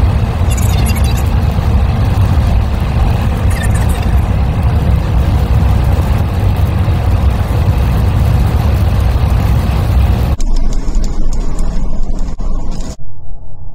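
Steady road noise of a car at highway speed, heard from inside the cabin: a loud rushing hiss over a heavy low rumble of tyres and engine. About ten seconds in it turns duller and lower for a couple of seconds, then gives way to music near the end.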